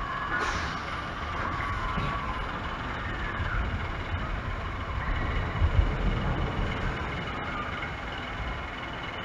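Ride-through ambience aboard a small amusement-park ride boat on open water: a steady, uneven low rumble with a hiss, with a few faint whistling chirps between about half a second and two and a half seconds in.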